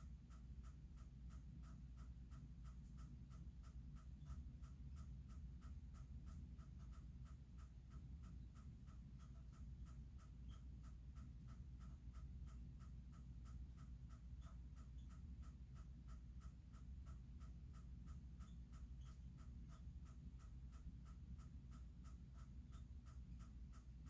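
A night-calling animal repeating a short, faint chirp about twice a second at a steady pace, over a low background hum.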